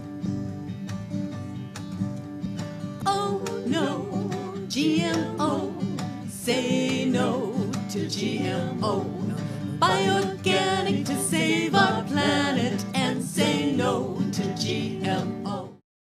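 A country-style song with guitar accompaniment. A voice starts singing about three seconds in. The music cuts off abruptly just before the end.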